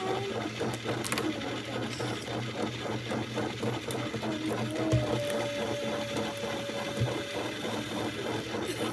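Small electric motor of an egg-decorating spinner running, turning an egg: a steady whir with a fast, even rattle.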